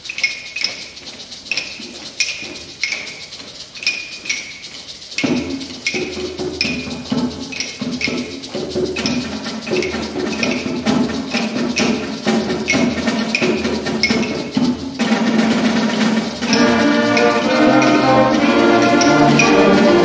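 School concert band playing: a clicking percussion pattern plays alone at first, low band instruments join about five seconds in, and near the end the full band comes in with many held notes, getting louder.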